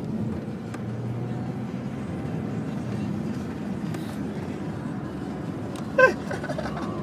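Steady road and engine noise inside a moving car's cabin, with a short loud voice sound about six seconds in.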